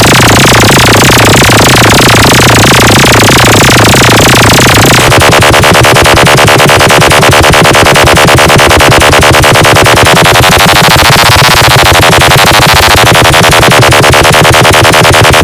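Loud, heavily compressed electronic DJ track with heavy bass and a fast, even beat. About ten seconds in, a wavering sweep rises and then falls over the beat.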